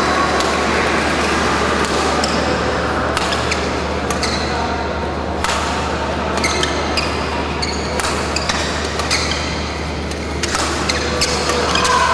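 Badminton rally: the shuttlecock is struck back and forth with sharp racket hits every two to three seconds, and shoes squeak on the court between them. A steady low hum and hall noise run underneath.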